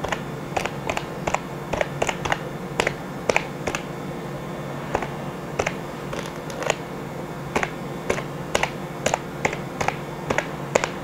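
Typing on a computer keyboard: irregular key clicks, a few a second, with brief pauses, over a steady low hum.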